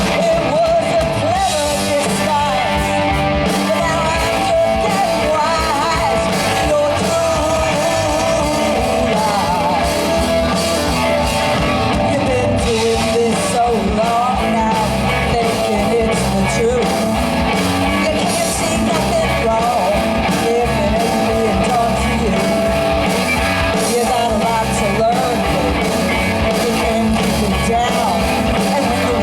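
Rock band playing, a singer over electric guitars and a steady beat.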